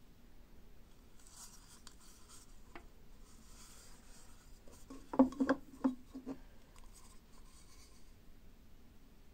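Hands handling carved wooden kuksa cups: faint rubbing and scraping, then a quick cluster of five or six hollow wooden knocks a little past the middle as a cup is set against the wooden board.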